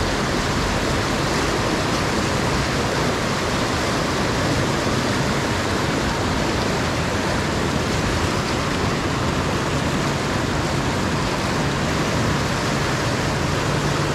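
River rapids rushing and churning around a boulder: a steady, loud rush of white water.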